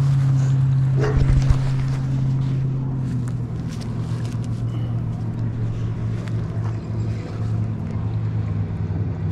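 Motorboat engine on the river running with a steady low drone; its pitch drops slightly about three seconds in. A couple of dull knocks come about a second in.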